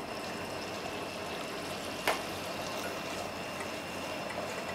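Carrot chunks sizzling gently in butter over low heat in a stainless steel saucepan, with the wooden spatula knocking once against the pot about two seconds in. A faint steady high hum sits in the background.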